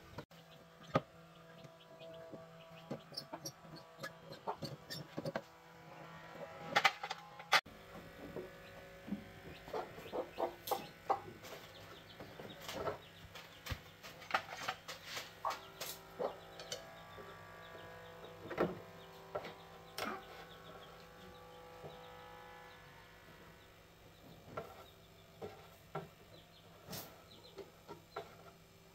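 Scattered metal clicks, clinks and knocks of hand tools and fasteners as a SYM underbone motorcycle is taken apart, the loudest clinks about seven seconds in.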